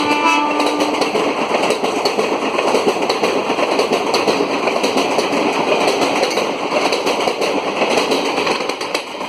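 An express train's coaches rushing past at high speed, wheels clattering rapidly over the rail joints. A train horn's chord cuts off about a second in. The rush drops away near the end as the train clears.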